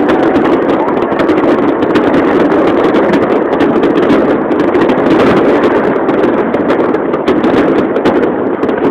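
Fireworks display: a continuous dense rumble of bursts with many sharp crackling pops, mixed with crowd voices.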